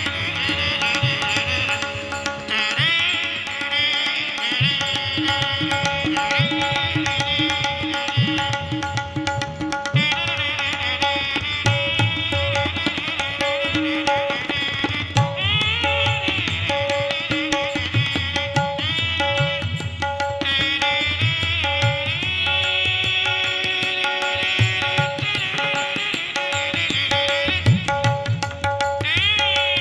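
Shehnai-like melody blown through a man's nose, a nasal imitation of the sanai, with bending, gliding notes. Underneath run a held drone note and tabla-style drum strokes.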